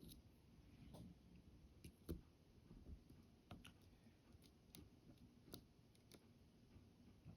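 Faint, irregular small clicks of a hook pick probing the side pins of a tensioned 11-pin dimple lock, searching for a binding pin.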